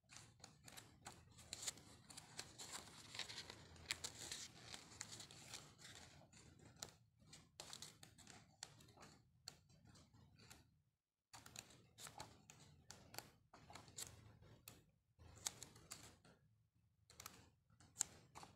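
Faint rustling and swishing of the coated-paper pages of a large cloth-bound art album being turned one after another, with small clicks and taps as the sheets are handled and settle.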